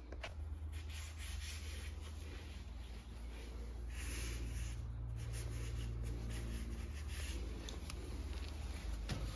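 Gloved hand rubbing wet grey grout across ceramic floor tiles and into the joints: a continuous gritty scraping, a little louder about four seconds in. A low steady hum runs underneath.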